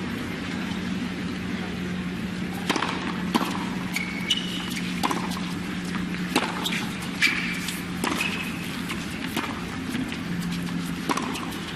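Tennis rally: rackets striking the ball back and forth, about a dozen sharp pops roughly a second apart, with a few short high squeaks in between. A steady low hum lies under it.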